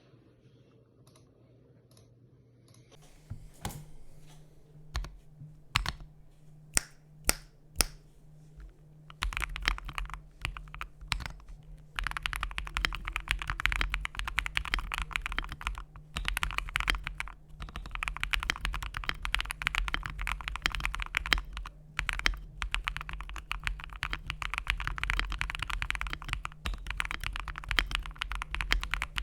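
Mechanical keyboard with lubed Akko Matcha Green switches (a CIY GAS67) being typed on: a handful of single, separate keystrokes, then fast continuous typing from about nine seconds in, broken by a few short pauses. A steady low hum runs underneath.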